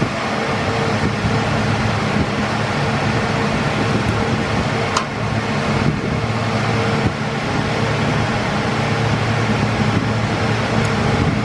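Steady whir of cooling fans and air conditioning in a telecom equipment room, with a constant low hum under it. One faint click about five seconds in.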